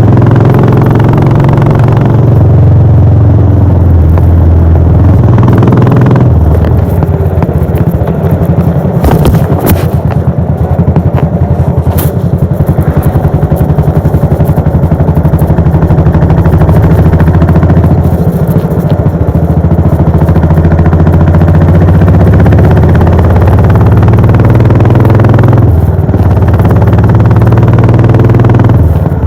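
Royal Enfield Bullet 500's single-cylinder engine running through its exhaust while riding. The engine note drops and picks up again several times as the revs change, with a few brief clicks and rattles partway through.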